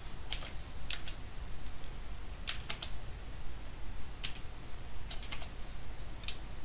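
Slow, uneven typing on a computer keyboard: single keystrokes and short quick runs of two to four, about a dozen clicks in all.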